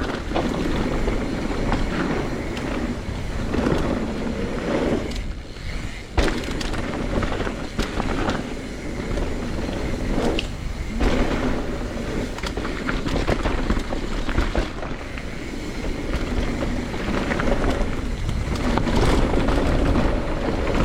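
Wind rushing over a rider's camera microphone with the rolling, rattling noise of a fast descent over rough ground, and sharp knocks from bumps. The rush swells and drops as speed changes and eases briefly about five seconds in and again about ten seconds in.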